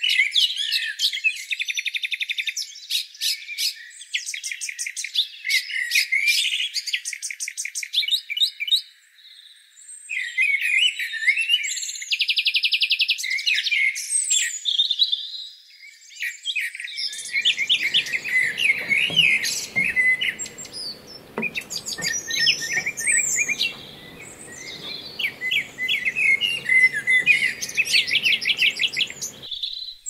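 Small songbirds chirping and twittering almost without pause, many short calls and quick trills overlapping. The sound is thin at first, then fuller from about seventeen seconds in, when a faint low background noise joins.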